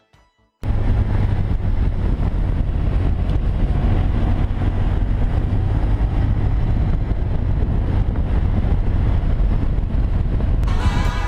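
A BMW R1200 GS's boxer-twin engine running as the motorcycle is ridden, with steady wind rush on the helmet-mounted microphone. It cuts in suddenly after a moment of near silence, and music starts near the end.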